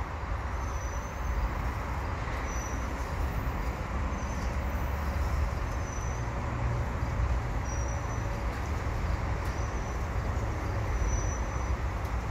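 Double-stack container well cars of a freight train rolling past on the rails: a steady rumble of steel wheels on track, with faint short high squeaks recurring about every second and a half.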